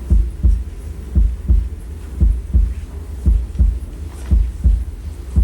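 A heartbeat sound: a low double thump, lub-dub, repeating about once a second.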